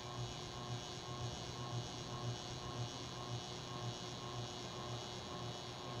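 Moss Heirloom Olympus ceiling fan running: a steady low motor hum that swells in even pulses about twice a second, over a faint steady hiss.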